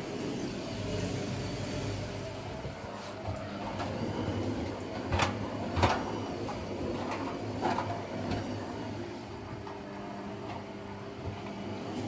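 Wet towels being stuffed by hand into a front-loading washing machine's drum, with a few sharp knocks around the middle, over a steady low hum.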